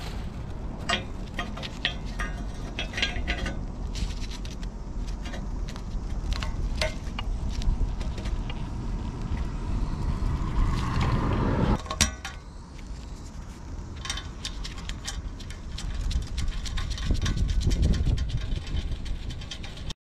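Honda CB750 Four's inline-four engine running through its exhaust, revved up in a rising sweep about ten seconds in that cuts off sharply, then building again near the end. Sharp clicking sounds run through it.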